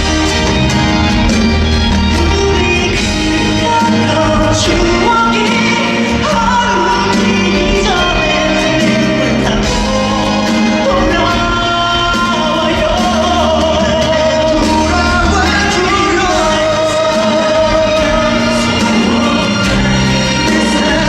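Live pop song: a male singer sings a melody over instrumental accompaniment.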